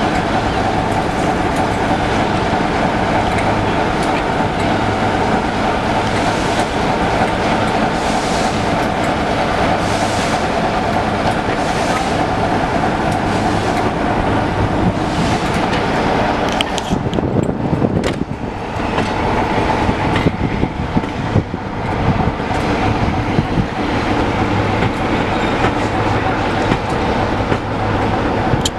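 Passenger coaches of a departing train rolling past at low speed: a steady rumble and hum with wheel noise on the rails. A few seconds past the middle the sound dips and turns rougher, with irregular knocks.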